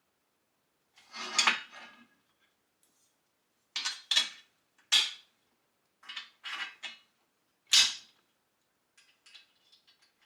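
Metal parts of a dumbbell rack clanking and scraping as they are fitted together and bolted, in a series of separate clatters, the sharpest about eight seconds in, with light ticks near the end.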